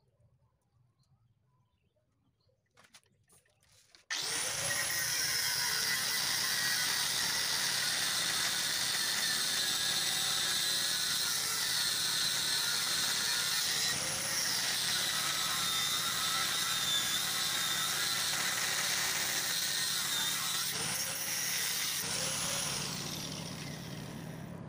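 Angle grinder cutting steel at the rear of a motorcycle frame. It starts suddenly about four seconds in and runs as a steady high whine with grinding noise, its pitch dipping and recovering several times as the disc bites, then eases off near the end.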